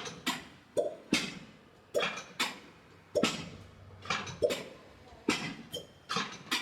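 A series of sharp, irregular smacks, about two a second, each with a short dull thump under it.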